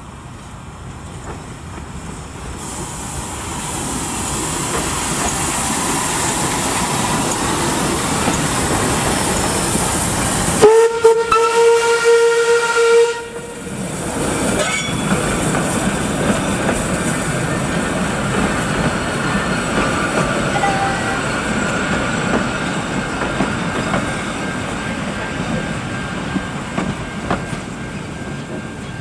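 Steam locomotive NM 25 approaching and passing at close range, its running noise growing steadily louder. About ten seconds in it sounds one steam whistle blast of about two seconds, the loudest moment. The locomotive and its passenger carriages then roll past with a steady rumble.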